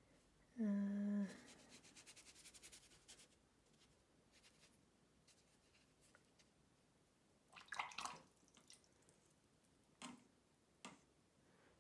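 Faint sounds of a watercolour brush working on paper: a fast run of light scratchy ticks as the brush dabs and strokes, then a few soft brushing sounds and taps. Just before the ticks, a brief hummed 'mm' at a steady pitch.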